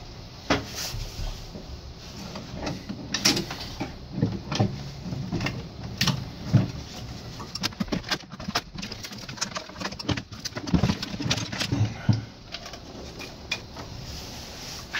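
Irregular clicks, knocks and rattles of a Merkur slot machine's reel unit and cabinet parts being handled and lifted out, plastic and metal parts knocking together.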